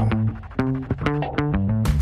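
Background music: bass and plucked-string notes in a steady rhythm, with a beat coming in near the end.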